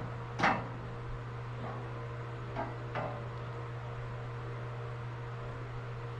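Clatter of hardware parts from the sheep handling system being tipped out and handled: one loud clatter about half a second in, then two lighter knocks around three seconds in, over a steady low hum.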